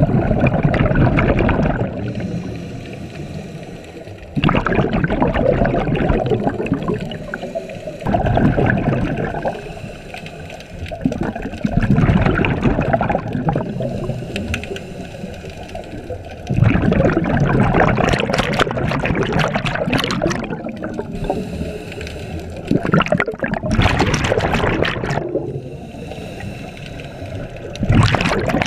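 Scuba regulator breathing heard underwater: a burst of exhaled bubbles gurgling out of the regulator about every four seconds, each lasting two to three seconds, with quieter pauses between while the diver breathes in.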